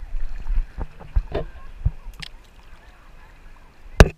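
Seawater splashing and lapping against a stand-up paddleboard, with a low wind rumble on the microphone and scattered knocks of the paddle and board. One sharp, loud knock comes near the end.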